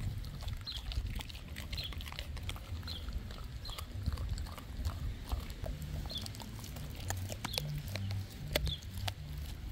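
Dog eating raw meat, chewing and smacking its mouth wetly, with several sharp crunches in the second half.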